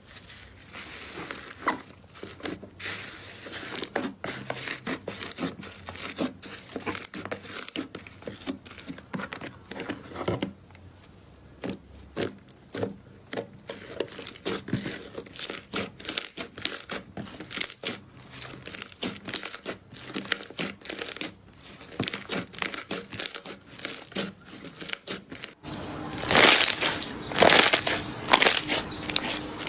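Slime being squeezed and poked, giving rapid irregular crackling clicks and pops that get louder near the end.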